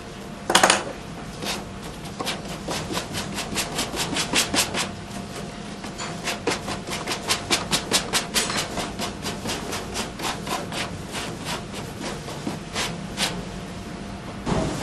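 Quick repeated strokes of a brush or pad dabbing and rubbing shoji paper onto a lamp's rib frame, several strokes a second, with a louder knock about half a second in.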